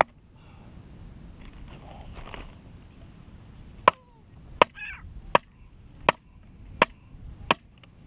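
Repeated sharp chopping strikes splitting a firewood log into kindling: one knock at the start, then six in a steady run about every 0.7 seconds from about four seconds in.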